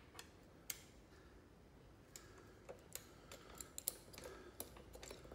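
Faint, irregular small clicks and ticks of a 6 mm Allen driver working a motorcycle seat bolt loose. There are a few isolated clicks early, then they come thicker from about two seconds in.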